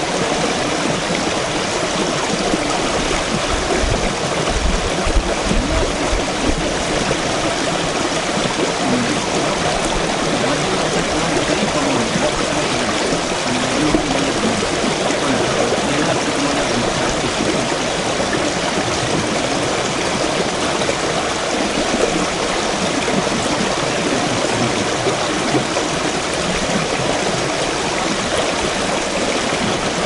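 Shallow brook running steadily over stones, water splashing through a small rapid.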